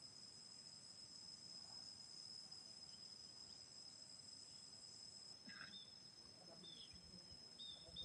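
Faint, steady, high-pitched drone of insects calling in the surrounding forest, with a few short high chirps near the end.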